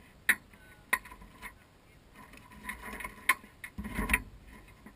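Handling noise close to the microphone: a few sharp clicks and knocks, the last few bunched together with a dull thud, as aluminium drink cans and hands bump the dune buggy's tubular steel frame.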